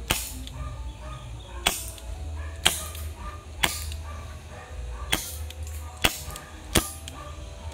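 Gas-powered airsoft revolver firing seven sharp shots, one every second or so at uneven spacing.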